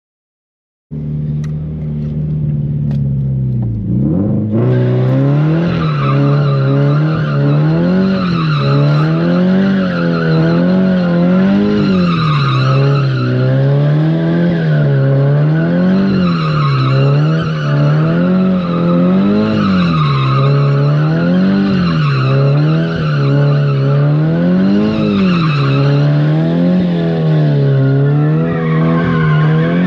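Nissan 350Z's 3.5-litre V6 held high in the revs while the tyres squeal, the car sliding. The engine note swings up and down in a steady rhythm about every second and a half, starting about a second in.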